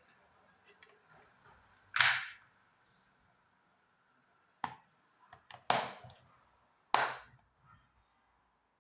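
Plastic DVD cases being handled: four sharp snaps with a few small clicks between them, the loudest about two seconds in, then three more in the second half.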